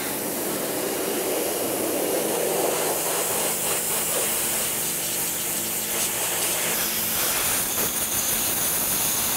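Pressure washer jet spraying a simmered whitetail deer skull, a steady loud hiss of water blasting the remaining meat off the bone.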